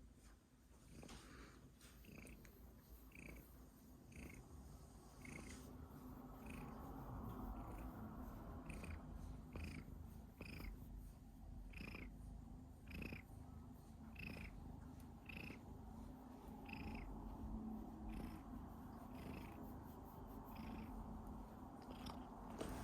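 Domestic cat purring steadily, with a short high squeak catching in its breath roughly once a second, the cough-like hitch this cat has while purring.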